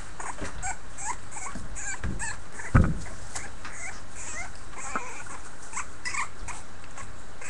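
Several young puppies squeaking, whimpering and yipping in short, high, rising cries as they wrestle together. There is one thump a little under three seconds in.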